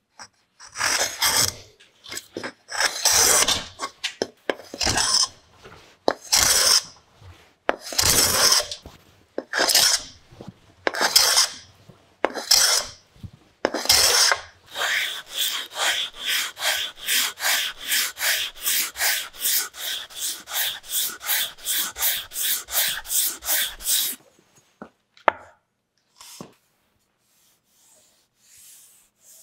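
Hand plane shaving the edge of a wooden board held in a vise: about a dozen long strokes, one every second or so, then a run of quicker short strokes, about three a second, that stops about 24 seconds in. A few faint scrapes follow near the end.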